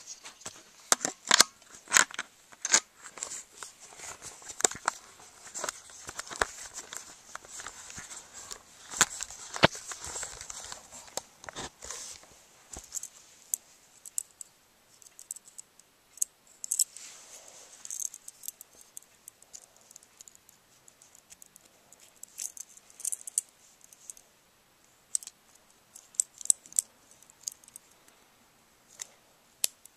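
Handling noise of small hard objects: a run of sharp clicks and rattles with rustling, busy for about the first twelve seconds, then sparser single clicks as a black Swiss Army knife is handled.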